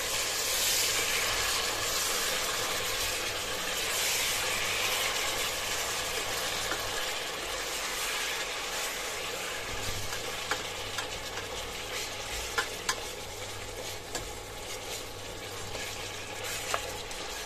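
Mutton pieces sizzling in hot oil in a steel pressure cooker as they are stirred and browned with a slotted spoon. The sizzle is loudest in the first few seconds and eases slowly, with scattered light clicks later on.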